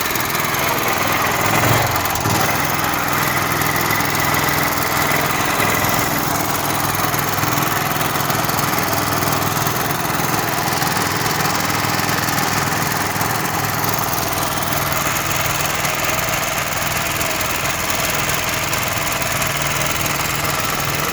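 Freshly overhauled 4-inch pump engine running steadily while driving an electric generator.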